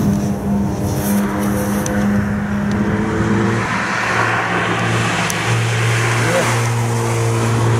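Volkswagen Golf Mk4 hatchback driving past through a corner on a wet track, its engine running at a steady note. The hiss of its tyres on the wet tarmac swells as it comes close, about four to seven seconds in.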